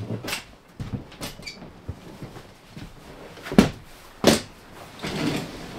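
Folding camp cot being unfolded: its metal frame knocks and clatters several times, with two loud knocks a little past halfway, then the fabric bed rustles as it is pulled open.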